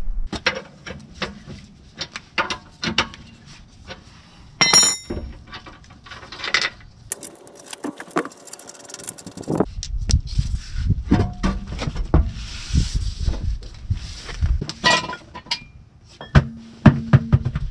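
Metal clinks, knocks and scrapes of tools, jack stands and wheel bolts as a car's rear wheel is taken off, with one ringing metal clink about five seconds in and a couple of seconds of rushing noise just before the middle.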